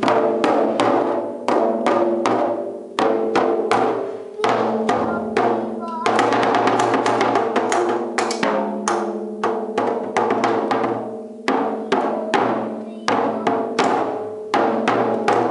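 A small child beating a drum kit's toms with drumsticks: uneven strikes, each one ringing on, with a quick flurry of rapid hits about six seconds in.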